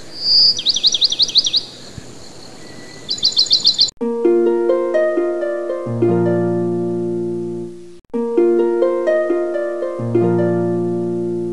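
Intro music: a quick high chirping trill twice in the first few seconds, then a gentle melody of plucked notes. The melody plays the same phrase twice, with low bass notes joining partway through each phrase.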